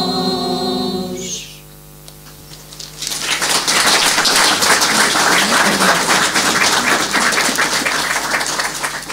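Women's choir holding its final chord, which cuts off about a second and a half in; after a short pause, audience applause starts and carries on, fading out near the end.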